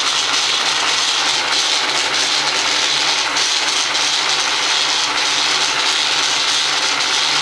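Milling machine's power table feed running steadily, its electric motor driving the table, with a constant hum and no change in speed.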